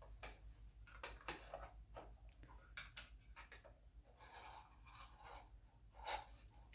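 Faint handling noises: scattered light clicks and brief rustles of small plastic figure parts and a display stand being handled.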